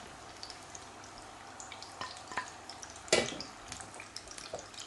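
Chicken pakoras sizzling and crackling in hot frying oil as the batch is lifted out, with one sharp knock about three seconds in, the loudest sound.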